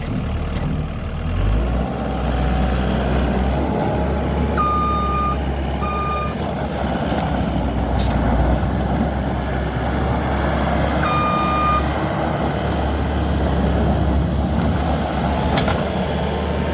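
New Holland L225 skid steer's diesel engine running under throttle, picking up about a second and a half in. Its backup alarm beeps as it reverses: two short beeps about five seconds in and a longer one about eleven seconds in.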